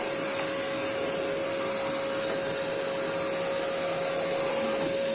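Vacuum cleaner running steadily: an even rushing air noise with a constant whine.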